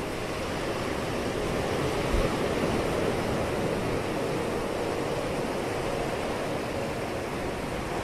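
Ocean surf washing steadily, swelling slightly about two seconds in.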